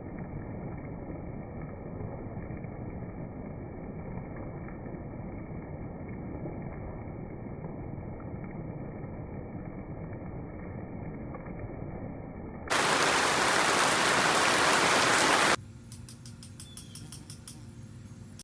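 Rain falling, a steady hiss that is muffled with no treble at first, then for about three seconds turns much louder and brighter, then drops back to a softer hiss with light ticks.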